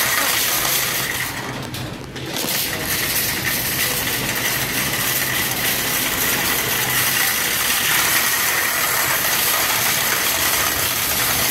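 Wire shopping cart rattling steadily as it rolls across a hard, smooth store floor, easing off briefly about two seconds in before rattling on.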